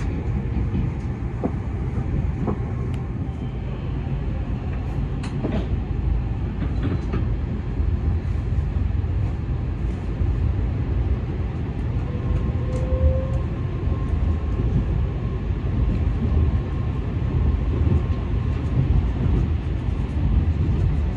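Tokaido Shinkansen Kodama train running, heard from inside the passenger cabin: a steady deep rumble with a few faint clicks.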